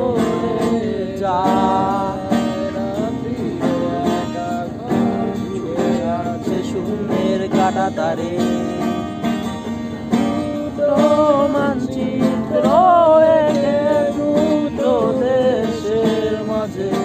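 A man singing a slow melody, holding long notes with some vibrato, accompanied by a strummed acoustic guitar.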